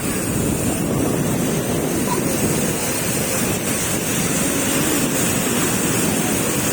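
Sea surf washing on the shore, with wind buffeting the microphone as a steady rough noise.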